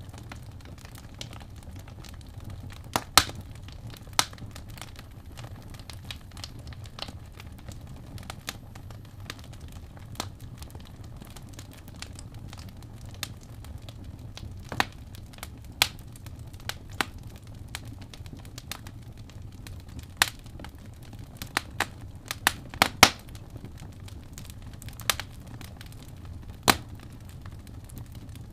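Wood fire crackling: sharp, irregular pops and snaps over a low, steady rush, with a cluster of louder snaps a little past twenty seconds in.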